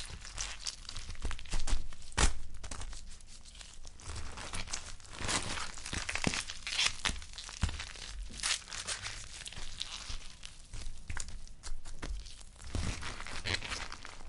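Blood-and-guts gore sound effect: irregular wet tearing, crunching and squelching, with the loudest crunches about two seconds in.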